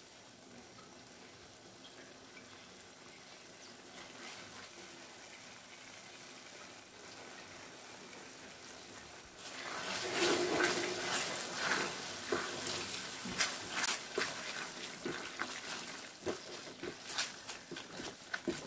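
A faint steady hiss, then from about halfway a silicone spatula stirring and scraping thick tuna and vegetable filling around a metal pan, with irregular clicks and squelches.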